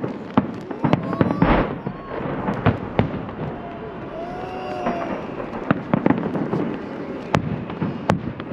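Salute fireworks bursting overhead: a dense, irregular run of sharp cracks and bangs over a continuous rumble of further explosions.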